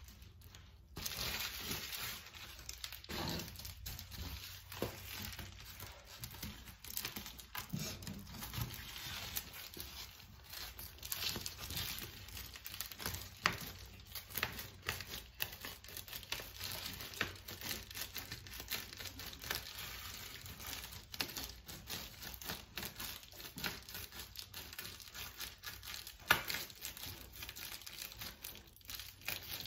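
Reflectix foil-faced bubble insulation crinkling and rustling as a sheet is handled and fitted against a car window, with many irregular sharp crackles.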